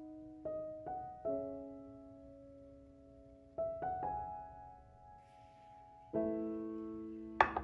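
Slow, gentle piano background music: single notes and chords struck a few at a time, each left to ring and fade. Near the end a short, sharp knock cuts in, louder than the music.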